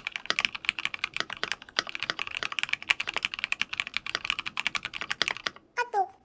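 Typing on an IKKI68 Aurora mechanical keyboard with lubed Cherry MX Black linear switches and Greenfield 70 g springs: a fast, uneven run of keystroke clacks. The typing stops a little before the end, followed by a short falling tone.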